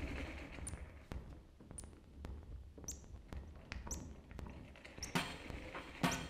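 Quiet, sparse improvised percussion: light, irregular stick taps and clicks on drums, some followed by a short high chirp, with a few louder hits about five and six seconds in.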